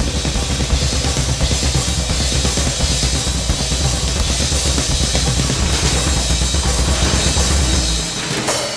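Drum kits played fast and dense, with heavy bass drum, snare and a wash of cymbals, dying away about eight seconds in.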